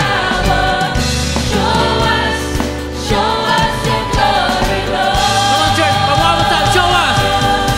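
Live contemporary worship music: women singing lead into microphones over drums and electric bass, with many voices singing along, holding a long note in the second half.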